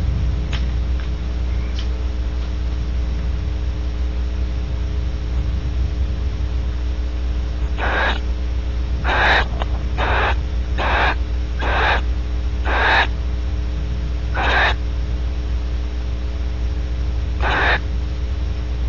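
Barn owl giving eight short, breathy wheezing hisses, starting about eight seconds in at roughly one a second, with a longer pause before the last. A steady electrical hum runs underneath.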